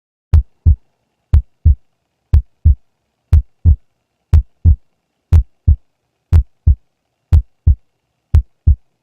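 Heartbeat as heard through a stethoscope: nine 'lub-dub' beats at about one a second, each the first and second heart sounds, two short low thumps a third of a second apart, with silence between beats.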